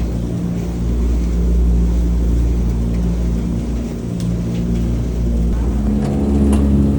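Steady low hum of a running motor or engine, its pitch shifting about six seconds in, with a couple of faint clicks.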